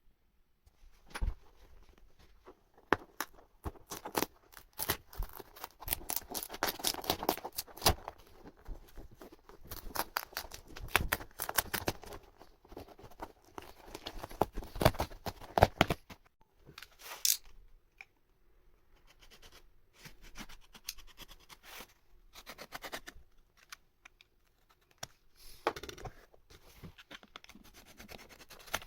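Hands and tools working on a torn sofa's upholstery: irregular clicks, scratching and scraping, busy for the first half, then a lull with one sharp click and sparser bouts of scraping.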